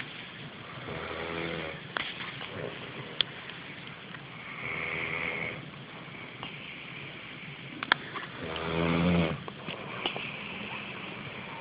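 A sleeping man snoring heavily: three long snores roughly every three and a half seconds, the last the loudest, with a couple of short sharp clicks between them.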